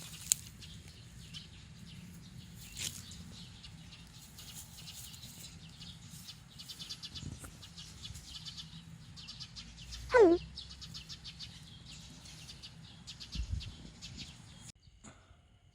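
A cat gives one short meow that slides down in pitch, about ten seconds in, over a steady background of rustling and light clicking.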